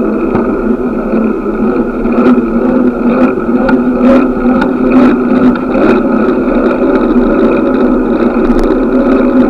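Steady rushing noise of a bicycle ride: wind and road noise on the camera, with scattered sharp clicks and rattles in the middle of the stretch.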